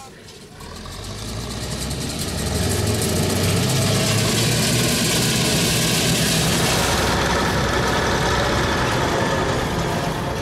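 Bizon Z056 combine harvester running steadily while unloading grain through its auger into a trailer beside a tractor. The diesel hum fades in over the first two seconds, and the high-pitched hiss drops away about seven seconds in.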